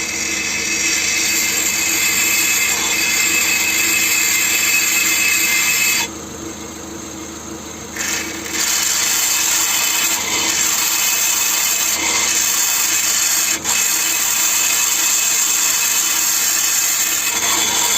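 A metal rod held against a spinning car brake disc, scraping steadily over the disc face to clean dirt off it, over the faint hum of the wheel being driven in gear. The scraping stops about six seconds in for around two seconds, then starts again.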